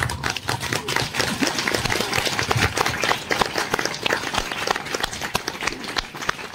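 Crowd applauding: many people clapping their hands together in a dense, irregular patter.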